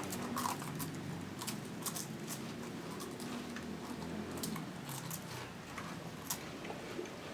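People eating a crumbly snack straight off plates with their mouths: soft chewing and munching with many small scattered clicks and crunches.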